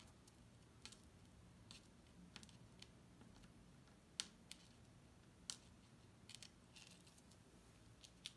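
Faint, scattered light clicks and taps as fingertips press and rub coloured sand onto a sticky sand-art card, the sharpest a little after four seconds and at about five and a half seconds in.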